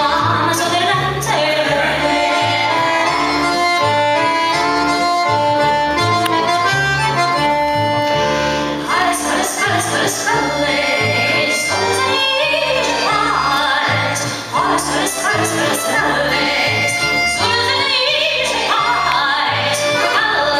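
Live klezmer music: accordion playing the melody over a pulsing double bass line, with a woman singing in parts.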